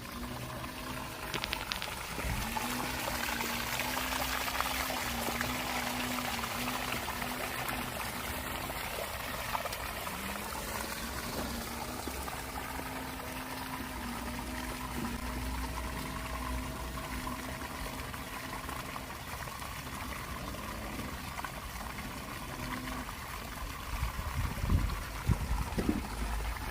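Water pouring steadily out of an outdoor sump pump's discharge outlet, pushed by a 1/3-horsepower pump. A few low thumps come near the end.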